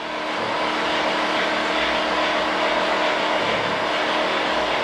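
Loud, steady machine noise of construction work: a motor's drone under a dense hiss, rising in over the first second and then holding without a beat.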